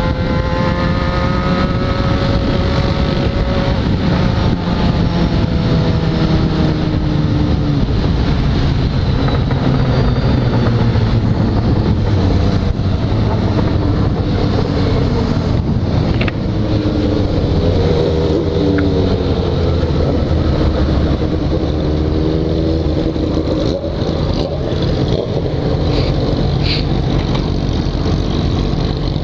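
Yamaha XJ6's 600 cc inline-four running at highway speed under heavy wind rush, its pitch falling early on and rising and falling again mid-way as the throttle changes.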